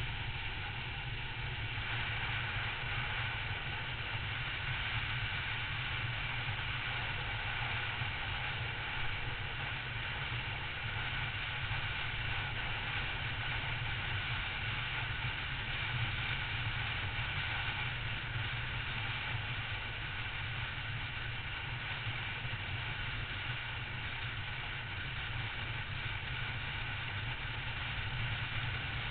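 Triumph Tiger motorcycle's three-cylinder engine running steadily at cruising speed on the move, mixed with constant wind and road rush.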